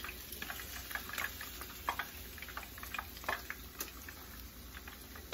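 Hot oil frying in a stainless steel skillet, a low sizzle with scattered crackles and pops, as fried catfish fillets are taken out of it.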